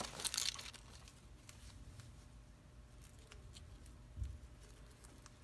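Hands handling small toy pieces and plastic packaging: a brief crinkling rustle at the start, then faint clicks and handling noises, with a soft bump about four seconds in.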